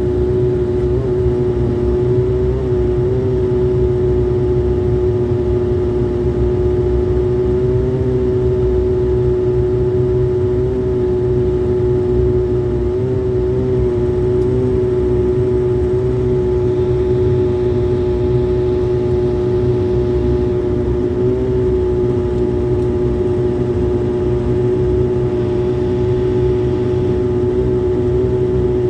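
Airliner engines running steadily, heard from inside the passenger cabin: a constant droning hum with one clear, steady tone over a low rumble.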